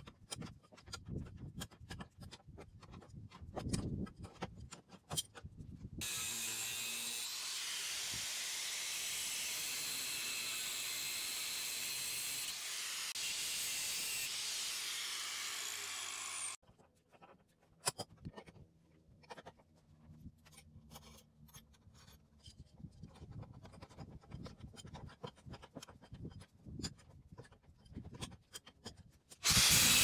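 Hand work on the barn's metal door-latch brackets: scattered clicks, knocks and rubbing. About six seconds in, a loud steady hiss starts abruptly and runs for about ten seconds before cutting off, and a louder short burst comes at the very end.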